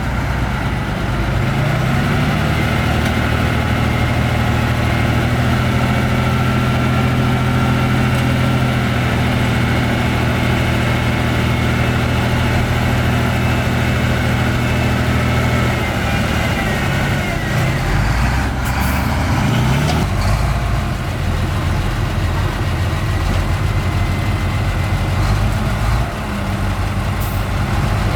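Heavy diesel engine of earthmoving machinery running, its pitch rising about a second in, holding steady, then dropping back about halfway through and rising again near the end.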